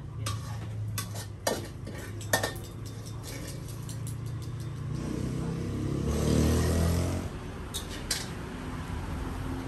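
Metal spatula scraping and clinking against a wok as fried rice is scooped out, with several sharp clanks in the first few seconds and two more near the end. Around six seconds in, a low rumble swells and fades.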